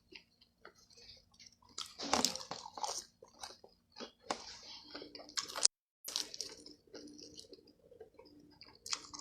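Close-up mouth sounds of someone eating chicken: irregular chewing and crunching bites, with louder crunches about two seconds in and again before a brief total dropout a little past halfway.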